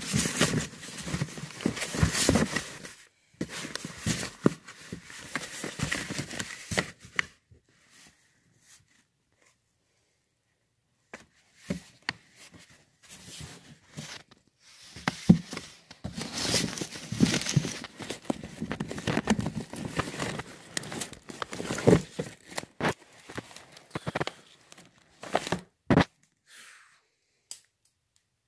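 Comic books being handled and their pages leafed through: paper rustling and crinkling in bursts. It goes quiet for several seconds in the middle, then the rustling starts again.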